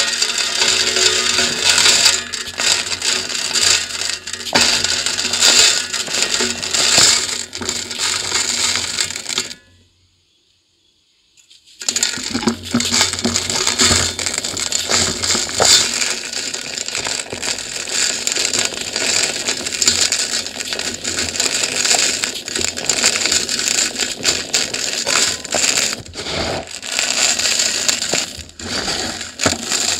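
Dry, grainy concrete crumbled by hand, the grit and small chunks crunching and pattering down into a steel bucket. The sound breaks off for about two seconds a third of the way in, then carries on.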